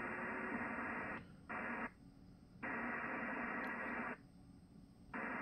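Yaesu FTdx1200 receiver hiss on the 160-metre band, cutting out abruptly three times, each for under a second. The audio muting is typical of the radio's band scope sweeping automatically. A faint steady tone sounds under the hiss for the first half second.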